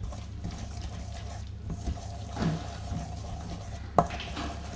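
A spatula stirring and scraping butter icing in a stainless steel mixing bowl, with one sharp click about four seconds in.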